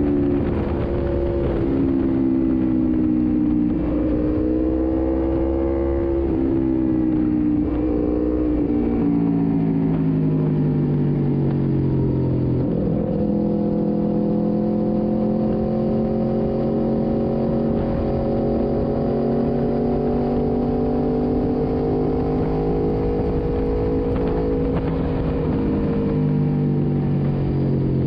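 Sport motorcycle engine running at road speed, its pitch rising and falling in steps through the first half, then holding a steady cruise and easing off near the end, with wind rush under it.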